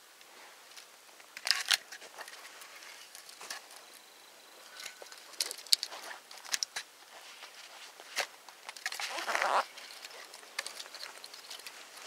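Sticks and split wood knocking and clattering as they are laid by hand onto a small tipi-built campfire, with scattered sharp snaps and crackles and a short rustle about nine seconds in.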